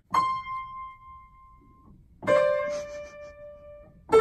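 Upright piano keys struck one at a time: a high note rings out and fades over about two seconds, then a lower, fuller note is struck and held until near the end.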